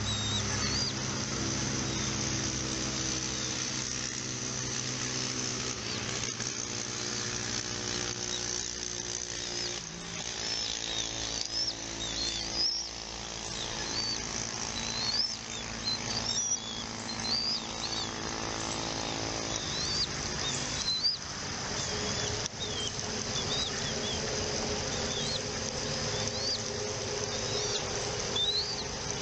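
A bird calling in short, high, upswept chirps, roughly one a second through the second half, over a steady low machine-like hum.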